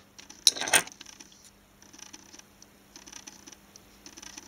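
Loose metal-cased transistors clinking and rattling together in a short clatter about half a second in, then faint scattered clicks and rustling as the pile is handled.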